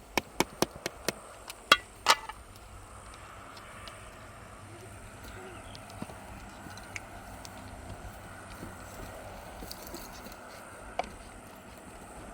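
A quick run of about eight sharp knocks in the first two seconds, then a steady low background hiss with a few faint, scattered clicks.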